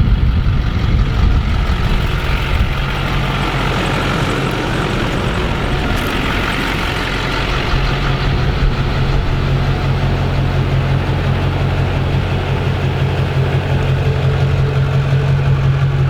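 Truck engine running steadily, a continuous low engine hum with a haze of road or wind noise that is stronger in the first half.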